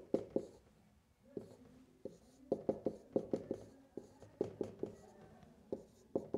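Dry-erase marker writing on a whiteboard: short strokes of the tip on the board, coming in quick clusters with brief pauses between them.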